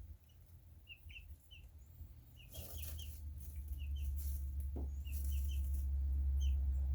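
A small pet's breathing, with short high chirps repeating every half-second or so, and two brief sneezes, one a little under three seconds in and one about five seconds in. A low rumble grows from about three seconds in.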